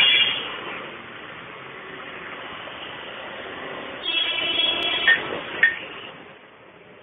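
Street traffic noise. About four seconds in comes a steady, high-pitched tone lasting about a second, followed by two short, sharp sounds.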